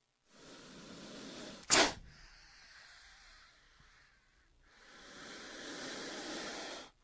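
Designed Titanoboa giant-snake sound effects: a breathy hiss that ends in a sharp, loud snap about two seconds in, then a second, longer hiss that swells and cuts off suddenly near the end.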